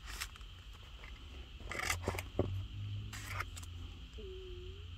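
Packaging being handled: a few short crinkling rustles of a small plastic bag and paper wrapping as the parts are picked up.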